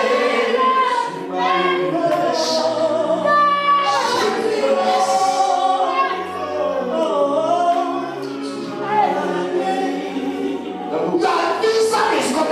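Gospel choir singing, several voices together over steady low held notes.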